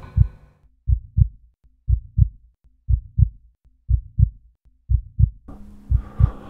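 Heartbeat sound effect: a low double thump about once a second, with all other sound dropped away. About five and a half seconds in, a steady hum and background noise come back in under the beats.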